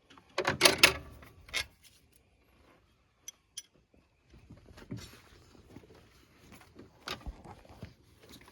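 Metal hand tools clinking and clattering: a loud burst of knocks about half a second in, then scattered clicks and light rattles with another sharp knock near the end.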